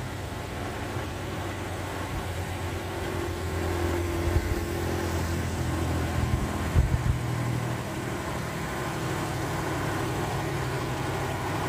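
Laden Mitsubishi Fuso dump truck's diesel engine pulling hard up a steep climb: a steady low drone that grows gradually louder as the truck nears, with a few short thumps about 4 and 7 seconds in.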